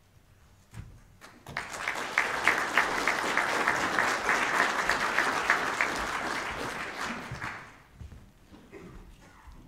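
Audience applauding: a few scattered claps, then full applause from about a second and a half in, which dies away around eight seconds in.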